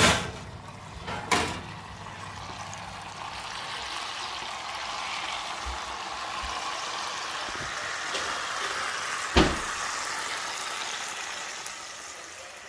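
Hot fat sizzling in a metal roasting pan holding a roast duck fresh out of the oven, with a few clunks of the pan and oven; the sharpest clunk, about nine seconds in, is the loudest.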